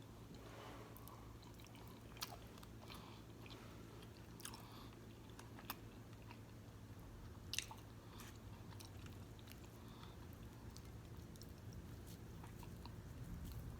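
Faint close-miked eating sounds: chewing of fufu and egusi soup, with scattered sharp wet mouth clicks and smacks, over a steady low hum.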